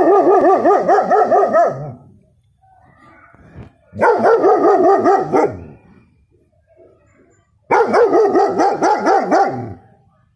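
Six-month-old German Shepherd barking in three volleys of rapid barks, each about one and a half to two seconds long, with pauses of about two seconds between them.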